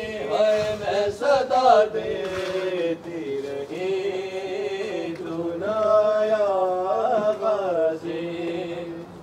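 Urdu noha, a Muharram mourning lament for Abbas, sung by a solo voice in long, drawn-out lines that slide and waver in pitch between verses.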